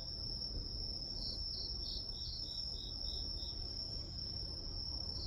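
Grass insects (crickets) calling: one steady high trill, with a second insect chirping about three times a second that stops about two-thirds of the way through, over a low background rumble.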